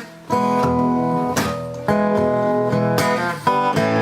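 Background music: an acoustic guitar strumming chords in a blues song, with no singing.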